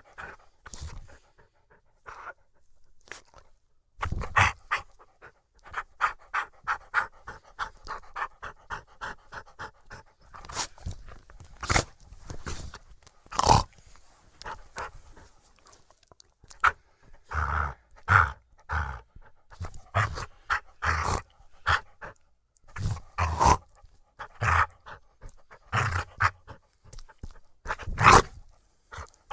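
Australian Cattle Dog panting fast, picked up close by a microphone on the dog itself, with several louder, sharp mouth sounds breaking in among the breaths.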